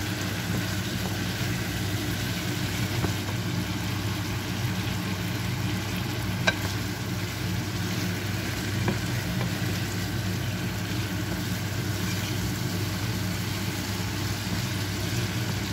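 Pork, potatoes and carrots sizzling in a frying pan while a wooden spatula stirs them, with a few sharp taps of the spatula on the pan, the clearest about six and a half seconds in. A steady low hum runs underneath.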